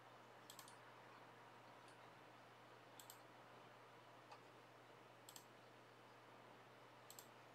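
Faint computer mouse button clicks: four quick pairs of clicks about two seconds apart, with a fainter single click or two between, over a low steady hiss.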